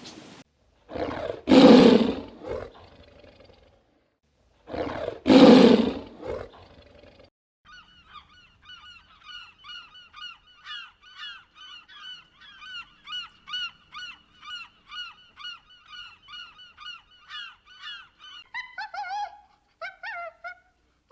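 Two loud, harsh animal calls, then a flock of birds honking in rapid repeated calls, several a second, with a few lower, falling honks near the end.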